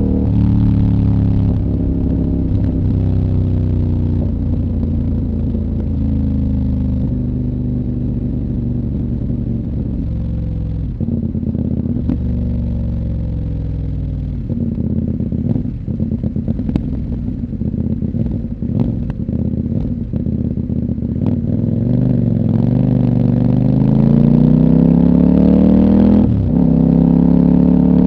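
CFMOTO 800NK's parallel-twin engine, decatted with the stock muffler, under way: the engine note drops several times as it slows, with a run of sharp pops and crackles from the exhaust on the overrun in the middle. Then the revs climb steadily under acceleration, dipping briefly near the end for a quick upshift before rising again.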